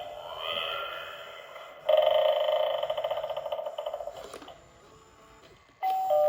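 Gemmy animated eyeball doorbell prop playing its sounds through its small speaker: a rising eerie sliding tone, then a loud, rapidly pulsing sound for about two seconds. After a short quiet gap its two-note ding-dong chime starts again near the end. This is the low-pitched version of the prop.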